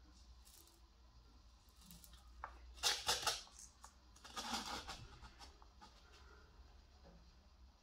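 Handling noise from a dried bottle gourd being shifted and turned in the hands: two short, dry scraping rustles about three seconds in and again around four and a half seconds, over a faint steady low hum.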